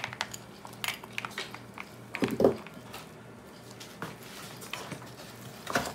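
Soft, scattered clicks and squishing of gloved hands mixing ground pork, shredded carrots and raisins in a plastic bowl. There is a short low sound about two seconds in and a sharper click near the end.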